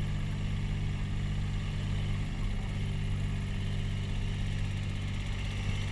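Engine of a small ship's rescue boat running steadily, its low drone holding one even note throughout.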